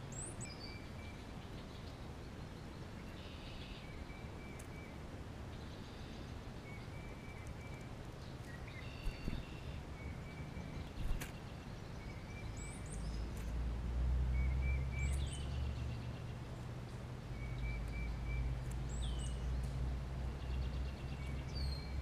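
Wild songbirds calling: repeated short high whistles that slide downward, and brief chirps every couple of seconds. A low rumble comes in a little past halfway.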